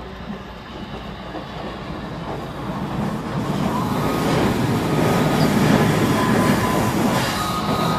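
HO-scale model passenger train, led by a streamlined PRR K4 steam locomotive pulling P70 cars, rolling along the layout track. Its wheel-on-rail rumble and clicking grow steadily louder as it approaches, and thin high tones join in about halfway through.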